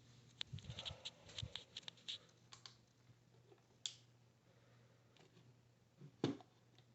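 Faint, irregular clicks and taps: a run of them in the first three seconds, then one near four seconds and one a little after six seconds, over a faint steady low hum.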